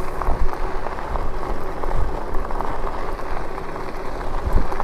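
Lectric e-bike's tyres rolling over an unpaved, dusty road: a steady gritty crackle of grit under the tyres, with low wind rumble on the microphone.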